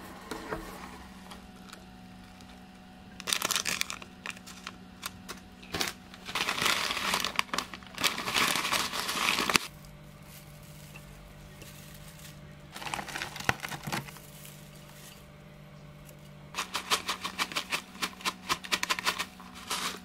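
Crinkling of a plastic pouch of dried seasoned seaweed flakes as it is handled and shaken out, with the dry flakes rustling, in four bursts of one to a few seconds each.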